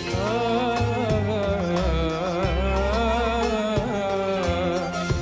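Arabic song with band backing: a male voice sings a long, wavering, ornamented line over steady bass notes.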